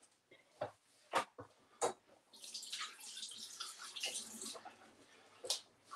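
A few light knocks and clatters, then a water tap runs for about two seconds and shuts off, followed by one more knock.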